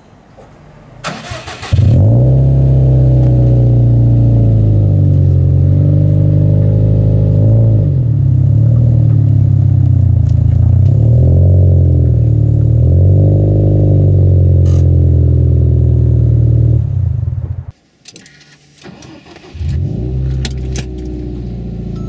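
Subaru WRX STI's turbocharged flat-four being cranked and catching, then idling loudly through an exhaust muffler that has one of its three inner silencers removed and two still fitted. The pitch dips and rises a few times before the sound cuts off abruptly.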